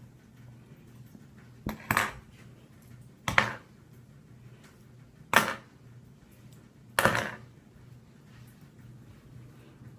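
Sharp clacks of small hard objects knocked or set down on a hard countertop: two close together about two seconds in, then three more spaced out, the last ringing a little longer.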